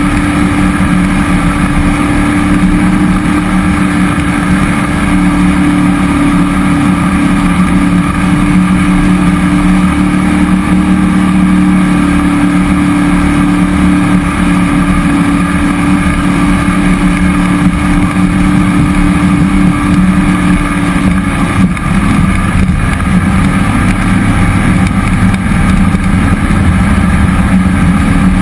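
Jet boat's cammed 5.3-litre LS V8 running steadily at speed, a loud, even drone. About three-quarters of the way through, the note dips briefly and then settles a little lower.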